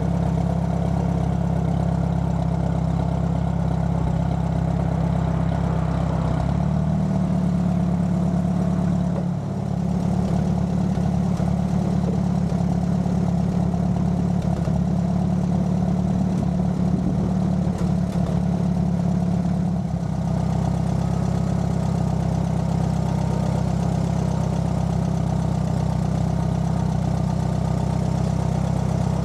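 Allis-Chalmers B tractor's four-cylinder engine running steadily as the tractor drives along, its note shifting slightly about six seconds in and again about twenty seconds in.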